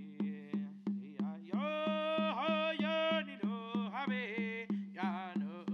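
A man singing a Haudenosaunee dance song over a steady percussion beat of about three strokes a second. His voice comes in about a second and a half in, drops out briefly near the end, then resumes.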